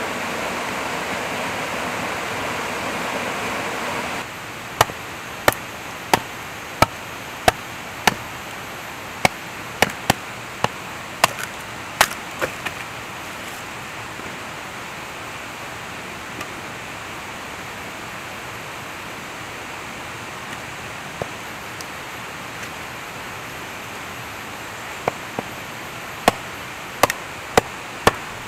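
Rushing river water for the first four seconds. Then a machete striking and splitting firewood, a series of sharp knocks a little under a second apart, stopping about halfway through, with another run of knocks near the end.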